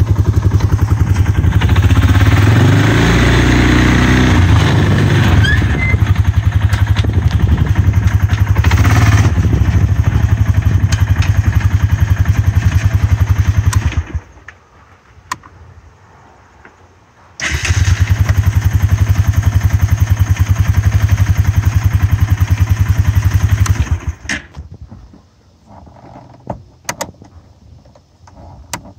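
Honda Foreman 450S single-cylinder ATV engine idling, briefly picking up a few seconds in, then switched off about halfway. It starts again a few seconds later, idles, and is shut off again, leaving a few faint clicks.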